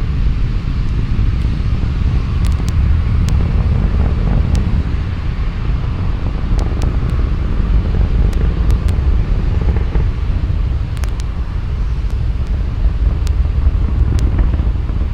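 Falcon 9 v1.1 rocket's nine Merlin 1D first-stage engines heard from the ground during ascent: a steady deep rumble with scattered sharp crackles.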